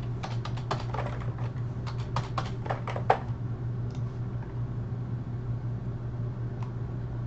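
Typing on a computer keyboard: a quick run of keystrokes lasting about three seconds, then a single click about four seconds in and another near the end. A steady low hum runs underneath.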